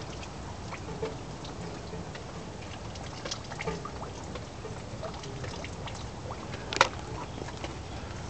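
Runoff from a hailstorm trickling and dripping, with scattered drops and one sharper click about seven seconds in.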